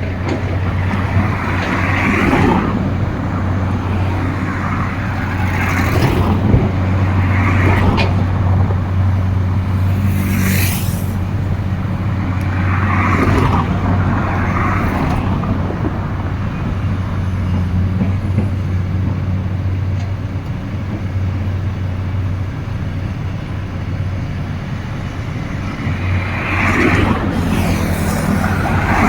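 Diesel engines of Kobelco hydraulic excavators running steadily at work digging and moving earth, with short rushes of noise every few seconds.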